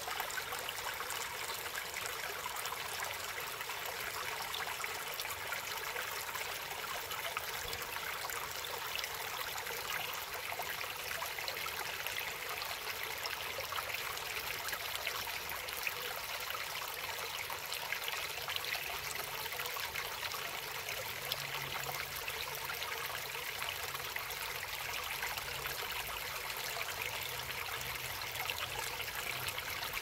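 Mountain stream running steadily with a fine trickling, its water flowing through an opening in partly melted ice.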